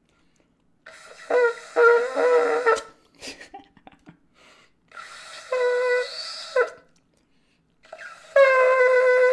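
Small ram's-horn shofar blown in three blasts: the first rough and breaking between notes, the second shorter and steadier, the third a long steady note. The small horn is still a little hard to play.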